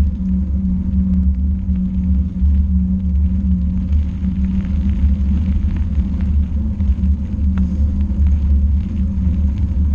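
Steady low rumble of travel along a dirt path: wind and ride noise on a moving camera.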